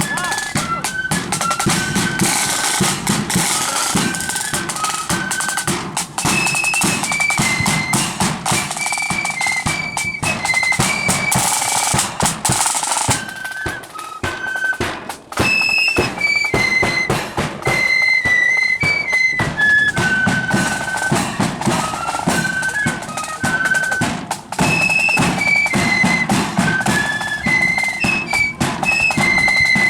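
Marching flute band playing a tune: high flutes carry a stepping melody over steady snare and bass drums.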